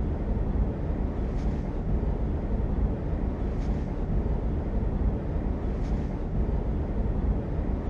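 Steady low rumble of background ambience, even in level throughout, with faint soft swells in the upper range about every two seconds.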